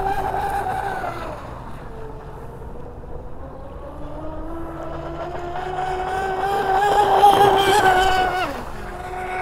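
RC speedboat's electric motor whining at full throttle, a steady high whine with overtones over the hiss of spray. The pitch eases down at first, climbs slowly through the middle, drops sharply about 8.5 seconds in as the throttle comes off, then picks back up.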